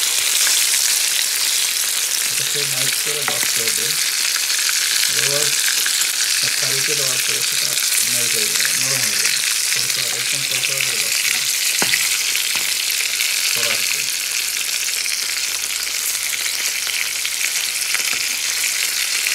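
Whole koi fish (climbing perch) frying in hot oil in a pan, a steady sizzle, fried until crisp. A metal spatula moves the fish, with one sharp tap on the pan about twelve seconds in.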